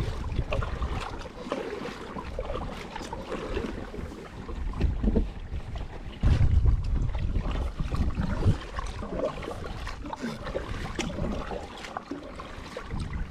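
Wind buffeting the microphone over a kayak on the water, with small scattered splashes and knocks; the wind rumble jumps much louder about six seconds in.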